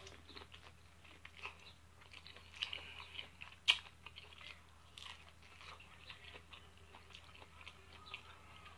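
A person biting and chewing corn on the cob: a run of small crunches and mouth clicks, the sharpest about three and a half seconds in.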